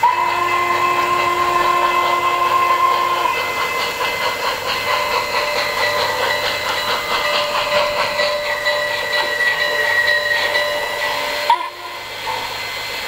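O-scale model Norfolk & Western steam locomotive's onboard sound system: a whistle chord held for about three seconds, then rhythmic steam chuffing with hiss as the engine runs, cutting off suddenly near the end.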